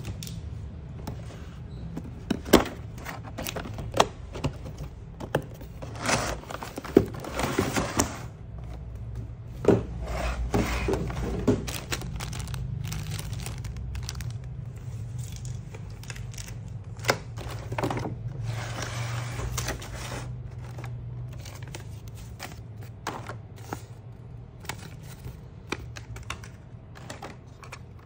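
Hands unpacking an RC drift car kit: plastic packaging crinkling and rustling in three longer bursts, among many light clicks and knocks of plastic parts and the box against a table.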